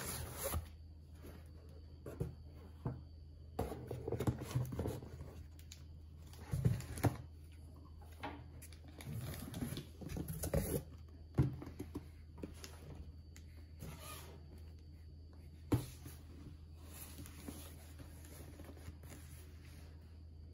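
Cardboard boxes being handled: scraping and rustling in irregular bursts, with a few sharp knocks, the clearest about eleven and sixteen seconds in.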